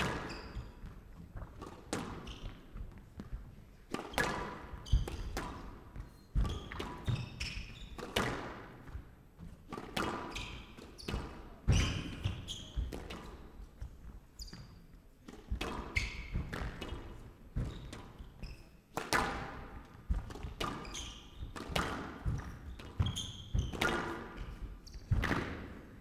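Squash rally: the ball struck by the rackets and hitting the court walls, sharp knocks every second or two at an uneven rhythm.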